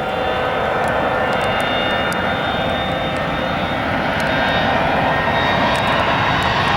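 Bombardier CRJ-900 regional jet's twin turbofan engines at takeoff power: steady jet noise with several high whining tones, growing gradually louder.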